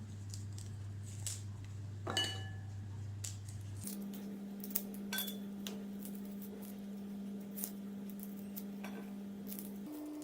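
Garlic cloves being peeled by hand with a small knife: light scattered taps and clicks of knife and cloves against a dish, with one ringing clink about two seconds in. A low steady hum runs underneath and steps up in pitch twice.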